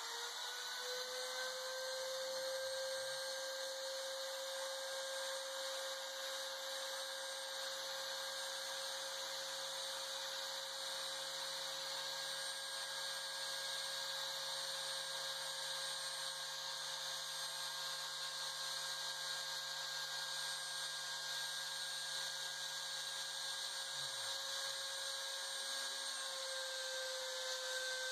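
A trim router used as the spindle of a homemade CNC machine spins up at the start, then runs with a steady high whine. Under it, the stepper motors driving the axes hum lower, rising and falling in pitch as the gantry speeds up and slows down near the start and again near the end, with a steady stretch of travel between.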